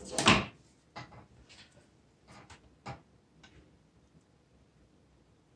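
Handling noise at a plastic instrument cluster: a short scrape or scuff right at the start, the loudest sound, then a few light plastic clicks and taps spread over the next three seconds as hands work at the gauge face.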